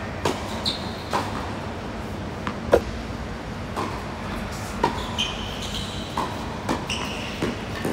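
Tennis balls struck by rackets and bouncing on a hard court during doubles rallies: a string of short sharp pops, the loudest about three seconds in, with a few brief high squeaks of shoes on the court. A steady low hum runs underneath.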